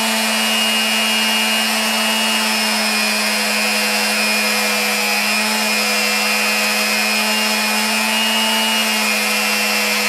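A VEVOR magnetic drill's motor running at a steady speed, a constant hum with a higher whine over it, as a center drill is fed into the cast-iron mill table.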